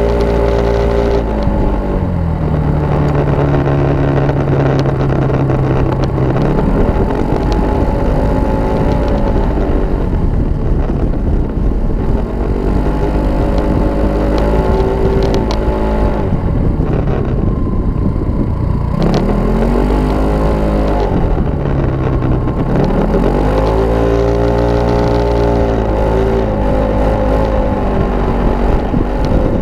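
Kymco Racing S scooter's engine under way at speed. Its pitch drops as the throttle is eased off and rises again under acceleration, several times over, with wind and tyre noise underneath.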